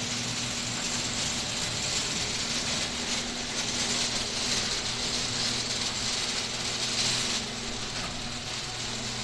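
Electric garage door opener running as the overhead sectional door closes: a steady motor hum under a continuous mechanical clatter of the door moving along its tracks.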